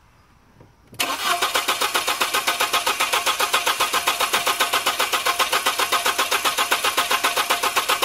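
2002 Volkswagen Passat 1.8-litre 20-valve turbo engine being cranked by the starter motor, starting about a second in with a steady, fast rhythm that never changes into running. It cranks but will not start after an ECM reset done by disconnecting the battery.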